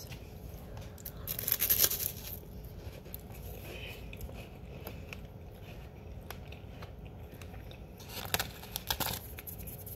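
Crunchy bite into a crisp hazelnut cream-filled wafer, about a second in, followed by quieter chewing, with another short burst of crunching near the end.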